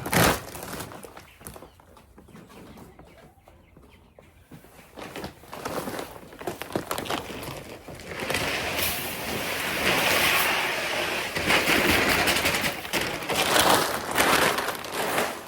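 Poultry feed pouring from a paper feed bag into a 55-gallon drum: a steady rushing hiss of pellets that starts about halfway through and keeps going, after a knock at the very start.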